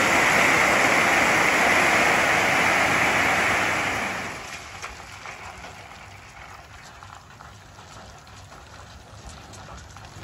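Landscape rock sliding out of a tipped dump trailer bed onto pavement in a loud, steady rush. The rush falls away about four seconds in, leaving scattered clicks of single stones trickling down.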